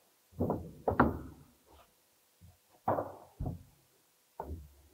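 Several irregular knocks and clunks of plastic drainage pipe and fittings being handled and fitted against the rig's wall, the loudest about a second in.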